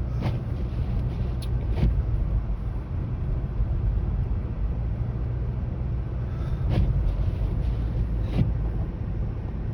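Steady low rumble of a car driving on a snow-covered road, heard from inside the cabin, with a few short knocks.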